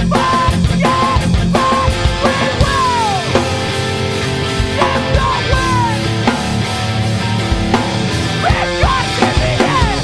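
Punk rock record playing: an electric guitar and drum kit band in full flow, with pitches sliding down around three seconds in.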